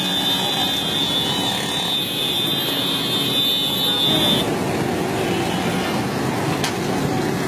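Caterpillar skid-steer loader's diesel engine running, with a high steady whine over the first half that cuts off suddenly, and a single sharp knock near the end.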